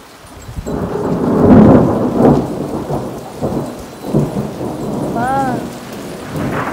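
Thunder rumbling over rain: it swells about a second in to a loud peak, then rolls on in waves for several seconds.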